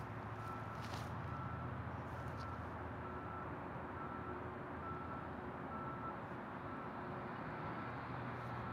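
A vehicle's reversing alarm beeping faintly at one steady pitch, a little faster than one beep a second, over a steady low engine rumble.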